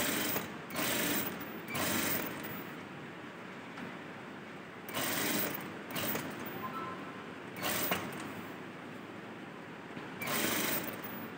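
Sewing machine stitching in several short start-and-stop runs, each lasting about half a second to a second, with quieter pauses between them. The machine is tacking bias piping onto the fabric.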